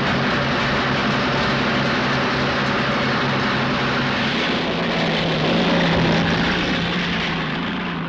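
Engine of a Chieftain bridge-layer tank, a Leyland L60 multi-fuel engine, running steadily. Its low note shifts a little about halfway through.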